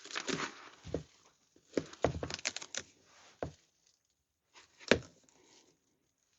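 Hands working with materials and tools: rustling and crinkling with several sharp knocks and clacks, the loudest about five seconds in.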